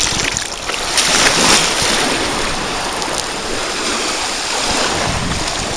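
Steady rush of small waves washing onto a sandy beach, mixed with wind buffeting the microphone.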